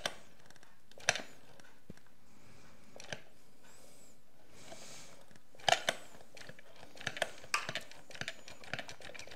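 Sharp plastic clicks of a hand-pressed batter dispenser, each press pushing its piston down a notch to squirt a portion of batter. A few single clicks at first, then a quicker run of clicks from about six seconds in.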